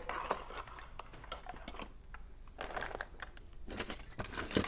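Small metal lock tools and a lock cylinder being handled and set down, giving scattered light metallic clinks and clicks, busier in clusters around the middle and near the end.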